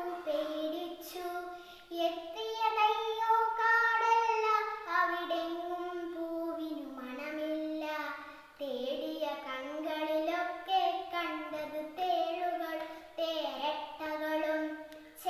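A young girl sings a Malayalam poem in the traditional melodic recitation style, without accompaniment. She moves through sustained, gliding phrases, with short breaks for breath near the start, in the middle and near the end.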